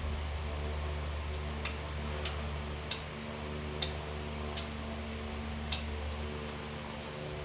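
A machine's motor humming steadily, with about five sharp clicks at uneven intervals.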